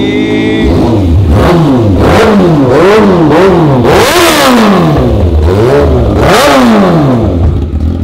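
Kawasaki ZX-6R 636 inline-four engine revved on the stand, blipped sharply about seven or eight times, each rev rising and dropping straight back. It is fitted with a Sprint air filter and Brisk spark plugs.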